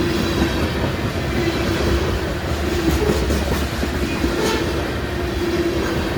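CSX freight train cars rolling past, a steady rumble with a few sharp clacks of wheels passing over the rail joints.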